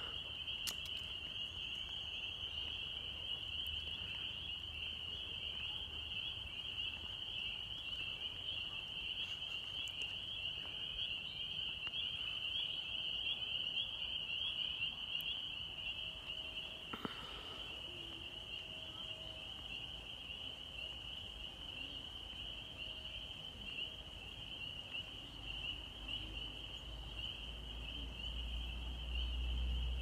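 A chorus of spring peepers: many high peeps at one pitch that overlap into a steady shrill trill. About halfway through there is a brief knock, and near the end a low rumble rises underneath.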